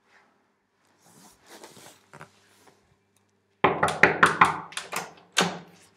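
Knocking on a wooden door: a quick run of about seven or eight sharp raps over roughly two seconds, starting a little past the middle, after some faint rustling.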